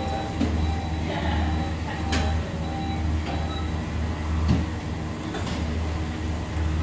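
Fast-food restaurant background: a steady low machine hum that pulses about once a second, with a few scattered clicks and knocks.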